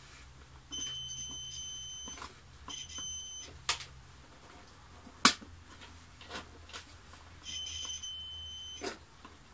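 Digital multimeter on continuity test beeping three times as the probes touch the vacuum cleaner's switch and motor wiring: a long beep, a short one, and another long one near the end. Each beep signals a closed circuit. A sharp click about halfway through.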